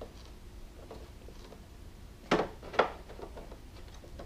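Two sharp clicks about half a second apart, with faint handling noise around them, as hard plastic trim parts on a motorcycle trunk lid are handled and pulled at.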